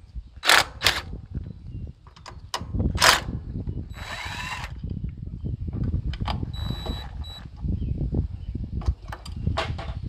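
Socket on a long extension loosening the top mounting bolt of a Kohler 19 HP engine's electric starter: scattered metal clicks and knocks, with two short whirring bursts about four and seven seconds in.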